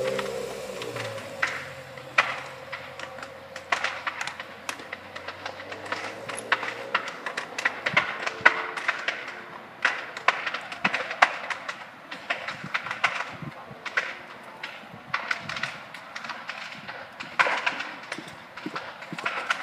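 A car drives slowly past with its engine running, its low hum fading out about seven seconds in. Sharp, irregular clicks and taps sound throughout.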